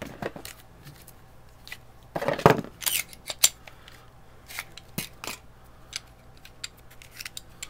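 Handling of Glock pistols and parts on a tabletop: scattered light clicks and clatter of metal and polymer, with one louder scrape about two seconds in.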